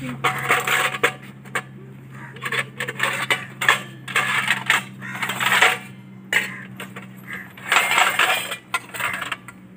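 Steel kitchen utensils clinking and clattering as ladles and spoons are taken out of a wire dish basket and knock against a stainless-steel bowl and the wire, in several short bursts.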